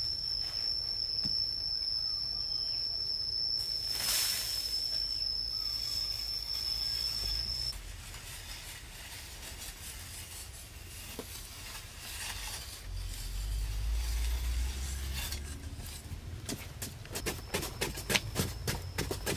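Hand tools, a hoe and a short pick, scraping and chipping into a packed earth wall, ending in a run of quick scratchy strikes. A steady high whine sounds until it stops about eight seconds in, over a low rumble.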